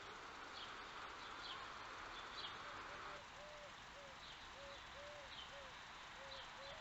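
Faint garden birdsong: short, high, slurred chirps repeating irregularly. From about halfway, a run of short lower notes comes in at about two a second. A steady hiss under the first half stops suddenly.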